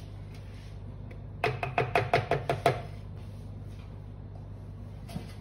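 A quick run of about eight light knocks lasting about a second, as the chopper blade is lifted out of a food processor's plastic bowl, over a steady low hum.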